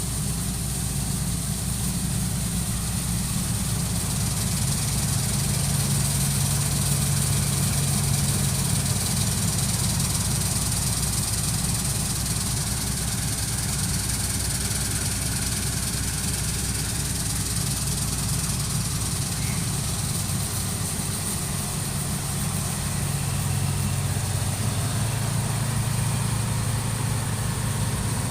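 Engine of the 8070 harvesting machine running steadily at an even speed while harvesting wheat, with a constant high-pitched hiss over the low drone.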